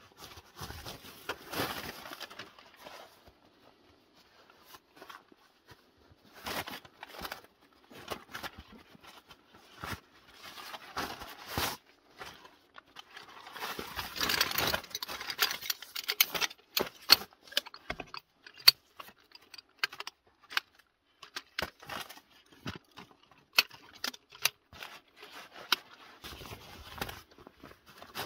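Rustling and handling of nylon gear and bags, then a run of sharp metallic clicks and knocks from about the middle on as the shock-corded aluminium poles of a Helinox Chair Zero folding camp chair are snapped together and fitted into its hub.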